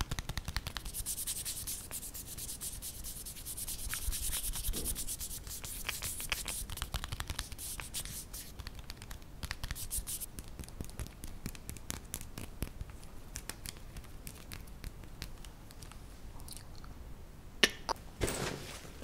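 Fingernails tapping and scratching on a plastic laptop power-adapter brick: a rapid run of sharp clicks, with a stretch of rough scratching about a second in. A louder knock and rustle near the end.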